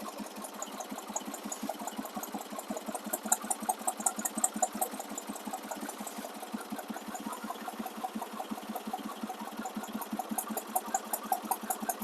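Ford 4500 backhoe's engine running steadily with a rapid, even pulsing beat.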